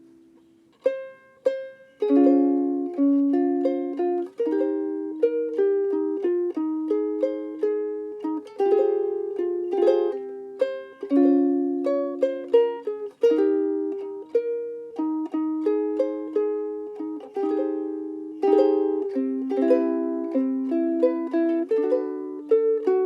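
LUNA MV-3Sf soprano ukulele with a solid Fiji mahogany body, played solo. A chord dies away at the start, two single plucked notes come about a second in, then a steady tune of picked notes and strummed chords follows.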